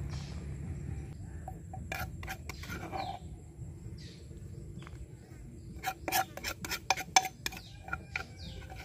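Metal spoon clinking and scraping against a dish while serving the salad, a few light clinks early on and a quick run of sharper clinks about six seconds in, over a low steady rumble.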